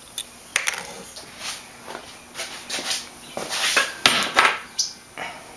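Sharp metallic clicks and short hissing bursts from an air-powered pop rivet gun setting rivets in cam lock fastener spring hardware, with the busiest stretch about halfway through.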